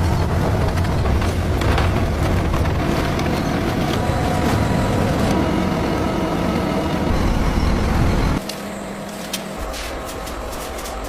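Heavy factory machinery running with a loud, steady rumble. About eight seconds in it cuts off abruptly to a quieter machine hum with a few sharp clicks.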